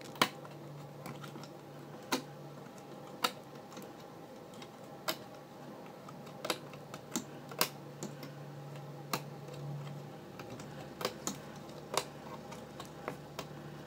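Irregular small clicks and snaps as rubber bands are lifted one by one off the plastic pegs of a Rainbow Loom with a hook, about one or two a second, over a faint steady hum.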